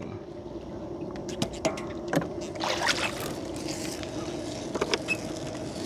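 Small fishing boat with a steady hum running under scattered light knocks and clicks, and a brief hiss about three seconds in, as a gill net is hauled aboard.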